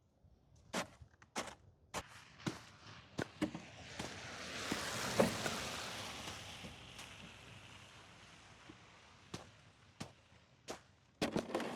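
Hammer blows knocking and cracking ice on a driveway, sharp hits at irregular intervals. About four seconds in there is a longer hissing rush with a louder crack at its height.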